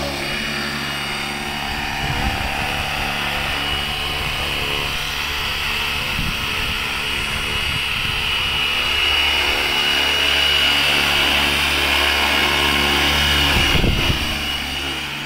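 Electric 450-size RC helicopter (Flywing FW450 V3 mechanics under a scale Sea Stallion body) running at flight speed, with a steady high motor whine over the rotor's chop as it lifts off and hovers low. It grows louder in the second half.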